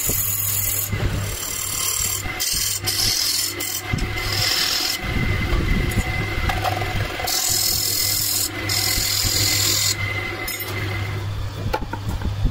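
Wood lathe turning a wooden disc while a hand-held turning chisel cuts into its face: repeated scraping, hissing cuts of about a second each as the tool bites and lifts, over the lathe's steady low hum. The cutting stops about ten seconds in.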